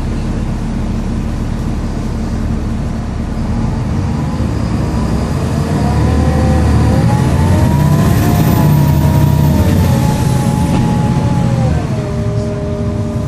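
Volvo B7LA articulated bus's diesel engine pulling away under load, with a whine rising in pitch. Over it a high-pitched whiny turbo whistle climbs, holds and fades. Near the end the whine steps down in pitch as the ZF automatic gearbox changes up.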